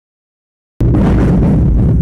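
Loud, distorted low rumble overloading the microphone, cutting in suddenly after about a second of silence.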